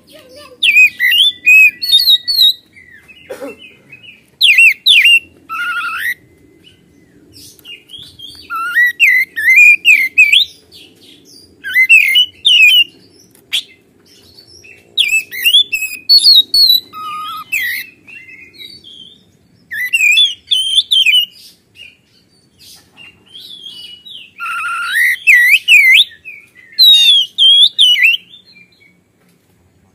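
Oriental magpie-robin (kacer) singing loudly: a run of short, varied phrases of quick sweeping whistles and chirps, each lasting a second or two, repeated every few seconds with brief pauses between.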